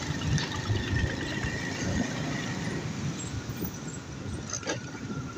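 Motorcycle ride noise in road traffic: a steady low engine rumble with wind and road hiss, and a faint thin steady whine above it.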